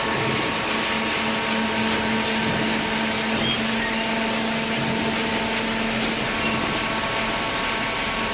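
Small hydraulic cardboard baler running, its electric motor and hydraulic pump giving a steady hum under a broad, even noise.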